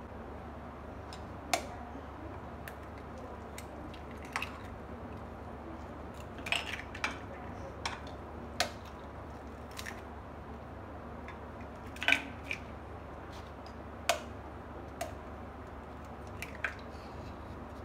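Irregular sharp taps and clicks of a steel spoon striking raw eggs to crack them open, with eggshells clinking against bowls, over a steady low hum.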